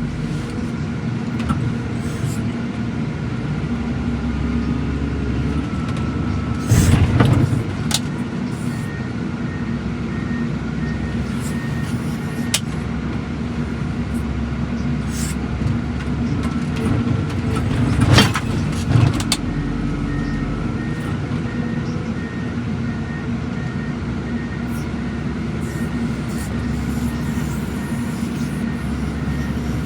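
Heavy equipment's diesel engine running steadily under load while it handles wrecked cars, with a reversing alarm beeping about twice a second in two stretches. Two loud impacts, one about a quarter of the way in and one a little past the middle.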